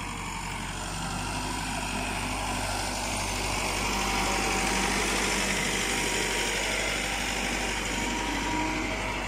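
Massey Ferguson 385 tractor's four-cylinder diesel engine running steadily as it pulls a laser land leveller, with the hiss of the scraper blade dragging through dry soil. The sound grows louder about four seconds in as the tractor passes close.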